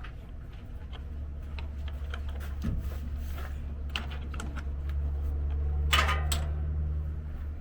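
Scattered clicks and clatter of parts and tools being handled over a steady low rumble. The rumble grows louder from about a second in, and a louder double clatter comes a little before the end.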